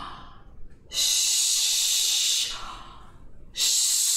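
A woman's forceful hissed exhalations as a breathing exercise: a long hiss starting about a second in, then another near the end, with a short quieter pause between.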